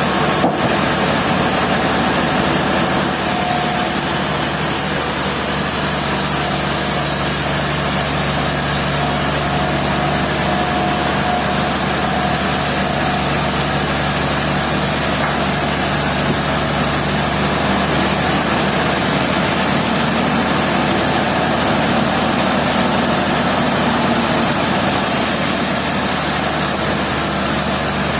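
Sawmill machinery running steadily: a constant engine drone with a few steady tones, unchanging in level.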